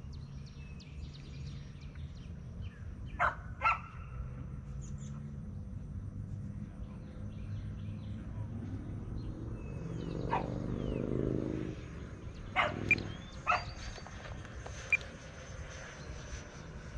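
Small dog, a Bichon Frise, barking in short sharp yaps: a couple about three seconds in, then several more in the second half. Under the barks is the steady whine of the E-flite F-16's electric ducted fan flying overhead.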